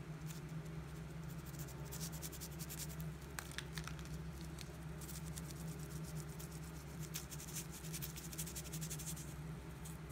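Fingers handling a plastic bottle-shaped powder candy container and its cap: light plastic crackling and clicking in irregular clusters, over a steady low hum.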